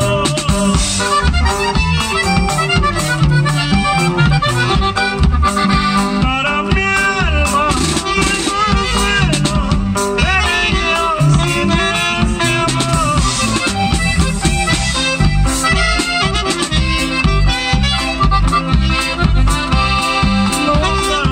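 Live norteño band playing, the button accordion leading over saxophone and a drum kit keeping a steady beat.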